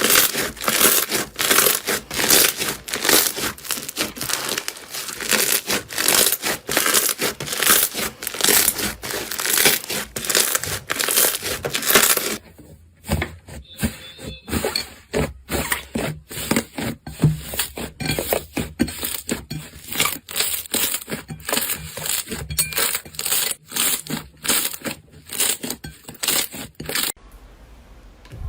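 Slime being squeezed and worked, making a dense crackling of small clicks and pops. About twelve seconds in it changes to sparser, separate pops and clicks.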